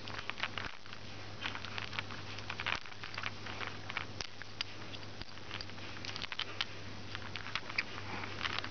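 Irregular light clicks and taps of small plastic toy balls and capsules being grabbed and knocked about by a rainbow lorikeet, with soft rustling of a fleece blanket.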